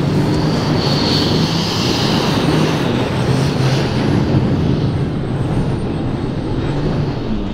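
Rat-rod pickup truck with giant flotation rear tires doing donuts on gravel: the engine runs loud and steady under load while the spinning rear tires churn the gravel.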